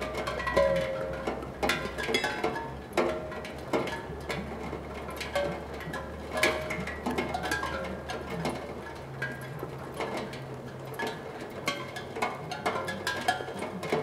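Raindrops striking a steel tongue drum, setting off scattered ringing notes at irregular moments, with a haze of rain noise between the strikes.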